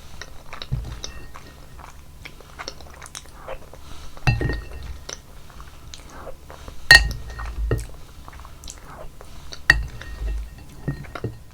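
Close-miked chewing of basil cream buldak udon, with wet mouth clicks and a few ringing clinks of a utensil against a dish, the loudest about seven seconds in.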